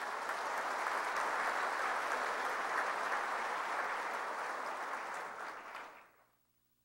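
Audience applauding steadily, dying away about six seconds in.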